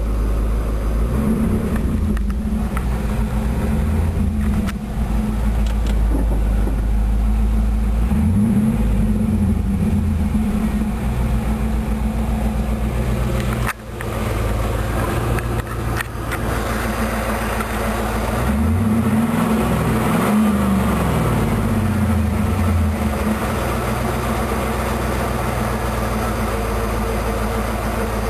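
Pontiac Trans Am's LS1 V8 running steadily, with a whine from the rear of the car that the owner takes for a failing fuel pump. The level briefly drops sharply about 14 seconds in.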